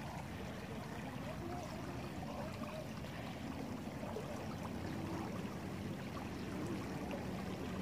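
Muddy floodwater flowing steadily in a swift current, a constant rushing wash of water.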